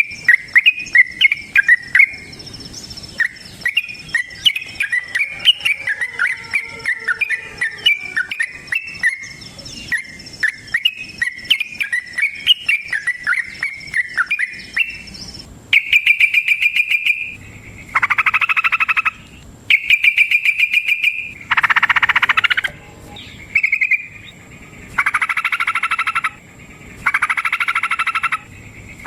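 Yellow-vented bulbul (trucukan) singing: rapid chattering notes for the first half. About halfway through it changes to repeated fast trilling bursts of about a second and a half each, separated by short pauses.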